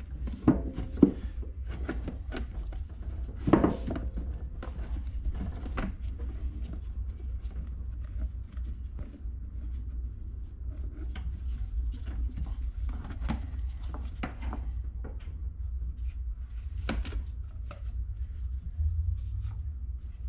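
Air box and air intake being fitted back onto a Yamaha Big Bear 350 ATV by hand: scattered knocks, clicks and rattles of parts being handled and pushed into place, the loudest in the first few seconds, over a steady low hum.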